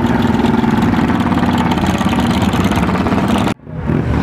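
Motorcycle engine idling loudly, a dense, rapid, even pulsing over a steady low hum. The sound cuts out abruptly for a moment about three and a half seconds in, then comes straight back.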